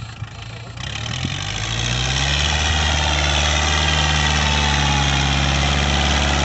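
Kubota MU4501 tractor's four-cylinder diesel engine working under load as it pulls a cultivator through the soil. From about a second in it grows louder and rises a little in pitch as the tractor comes close, then runs steadily and loud.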